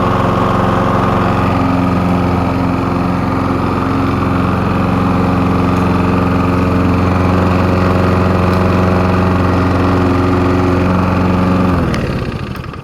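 Small walk-behind lawnmower engine running steadily, then shut off about twelve seconds in, its pitch dropping as it winds down to a stop.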